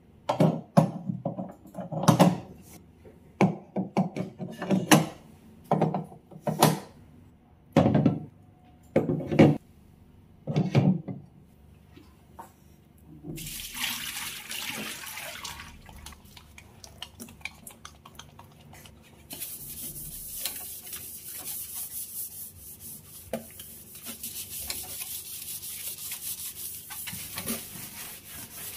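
Metal gas-stove burner caps clunking as they are set back onto the hob: about a dozen sharp knocks over the first ten seconds. Then water poured from a bowl splashes into a stainless steel sink, and after a pause a plastic scrubbing brush rubs steadily over the soapy stainless drainboard.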